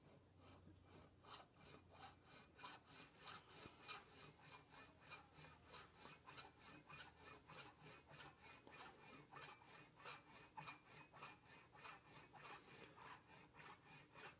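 Japanese pull saw cutting through a block of jewelry carving wax, in quiet, even strokes of about four a second.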